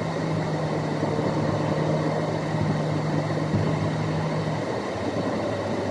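Car driving along an urban expressway, heard from inside the cabin: steady engine and road noise with a low hum that drops away about four and a half seconds in.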